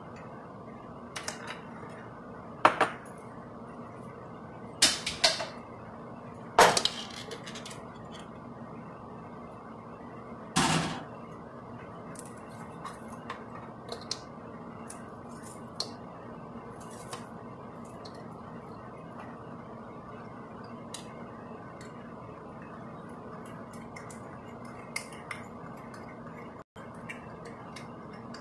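Kitchen bowls and utensils being handled on a wooden cutting board: a handful of sharp clinks and knocks in the first ten seconds or so, then lighter scattered ticks, over a steady low background hum.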